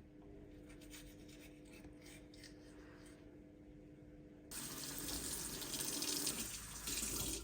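A faint steady hum. About four and a half seconds in, a tap is turned on and water runs hard into a sink.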